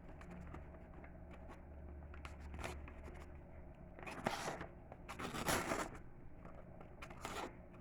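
The small knife blade of a Leatherman Micra multi-tool being drawn through thin advertisement paper, in three scraping, tearing strokes in the second half, after faint ticks of handling.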